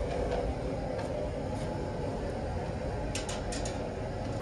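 Gas ring burner firing a tandoor oven with a steady low rumble, with a few faint clicks near the end.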